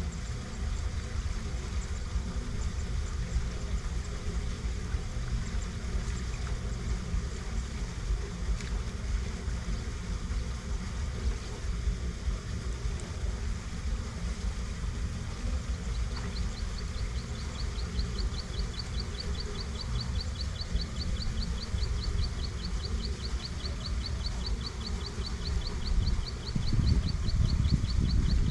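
Wind rumbling on the microphone, low and gusty, growing stronger near the end. About halfway through, a rapid high chirping starts up and repeats evenly, around four chirps a second.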